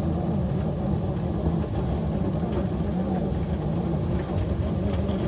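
A model locomotive runs steadily under load while pushing a Russell snowplow through deep snow, with a low hum that wavers slightly in pitch.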